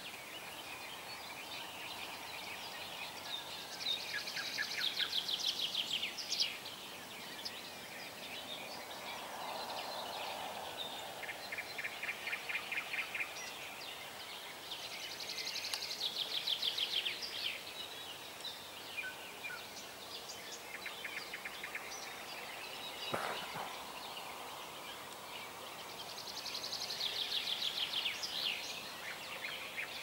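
Songbirds singing over a steady outdoor hiss: a rapid, high trilling phrase comes back about every ten seconds, with softer chirps in between.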